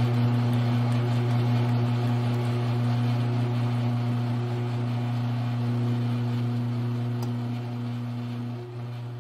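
Grizzly G1007 mill-drill's electric motor and spindle running with a steady hum, drilling a 1/8-inch cross hole in a small part held in the vise. The sound eases off gradually and drops a little near the end.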